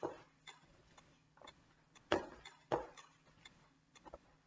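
Metronome ticking at 120 beats per minute, about two ticks a second, while sneakered feet step up onto and down off a wooden step bench, giving louder footfall knocks at the start, about two seconds in and just before three seconds in.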